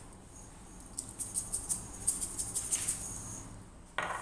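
A jar of garlic powder being shaken, a quick run of fine rattling ticks lasting about two seconds, with a single sharp knock near the end.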